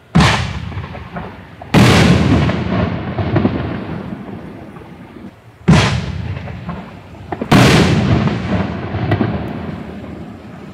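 Two 5-inch canister shells fired from a T-800 24-shot, 60-gram aerial shell cake. Each launches from its tube with a sharp thump, and about a second and a half later it bursts overhead with a loud boom that rumbles and fades over several seconds.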